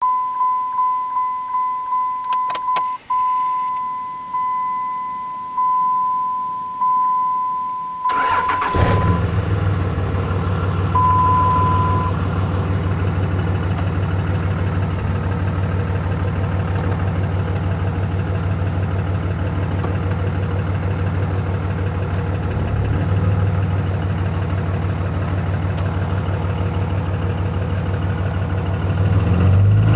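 A vehicle warning chime beeps repeatedly. About eight seconds in, a Cummins diesel engine cranks, starts and settles into a steady idle with a rhythmic knock, which the owner takes for a rod knock.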